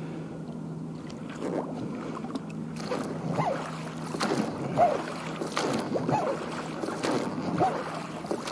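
A small boat being rowed after a downed duck: rhythmic oar strokes about every 0.7 seconds, starting about three seconds in, over a steady low hum.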